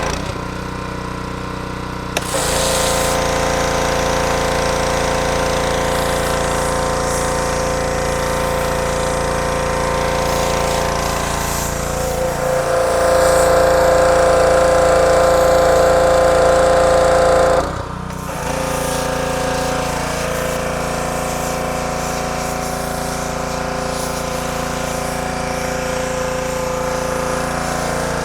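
An engine running steadily, with its level and tone changing suddenly a few times, loudest in a stretch near the middle.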